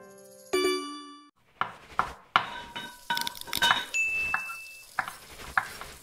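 Outro sound effects for an animated subscribe button and channel logo: a bell-like ding about half a second in, then a string of sharp clinks and clicks with a short high ringing tone about four seconds in.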